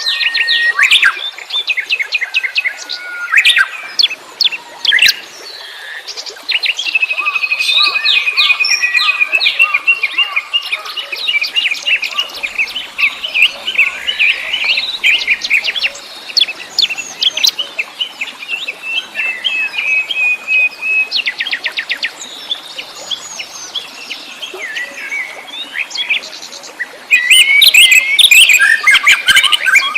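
Several wild songbirds chirping and singing over each other, with long fast trills and short whistled notes; the chorus grows denser and louder near the end.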